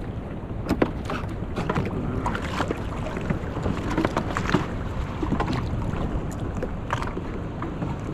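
Wind buffeting the microphone and water slapping against the hull of a Sea-Doo FishPro jet ski, with scattered short knocks and handling noises as a small snook is brought alongside and grabbed by hand.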